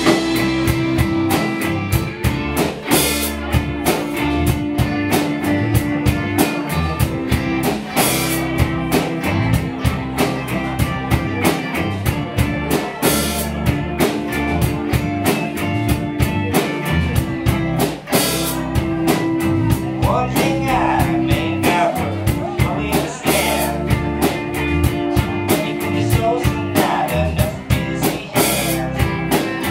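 A live rock band playing a song: a drum kit keeps a steady beat under electric guitar and bass, with a wavering melody line coming in about twenty seconds in.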